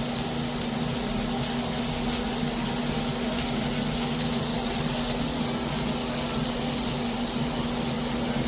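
Steady rushing road and engine noise of a car on the move, heard from inside, with a constant low hum.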